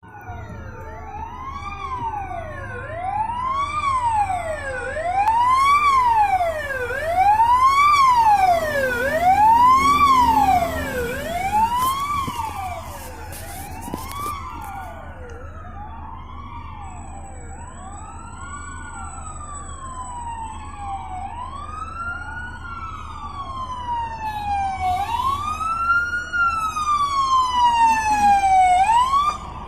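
Wailing electronic sirens of a fire engine and a ladder truck responding to a call. Two sirens overlap, each sweeping up and down about once a second over a low vehicle rumble. The sirens are loudest in the middle and again just before the end.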